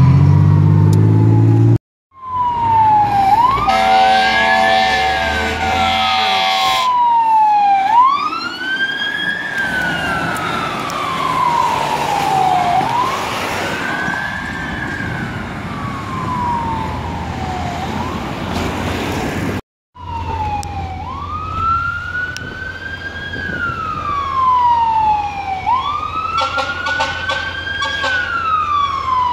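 Fire truck sirens wailing, each cycle rising quickly and falling more slowly in pitch about every four to five seconds, with long air horn blasts over the siren. The sound cuts out suddenly twice, coming back each time as another siren.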